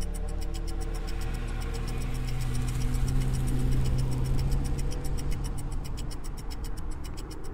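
Suspenseful film score: a steady, rapid clock-like ticking over a sustained low drone.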